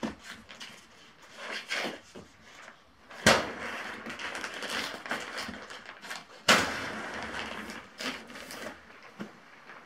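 Air rushing out of the open valve of an inflatable insulated sleeping pad as it is pressed and folded to empty it: two loud gusts, each starting suddenly and trailing off over a couple of seconds, with the pad's fabric rustling under the hands between them.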